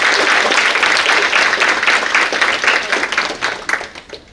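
Audience applauding, thinning to scattered claps and dying away near the end.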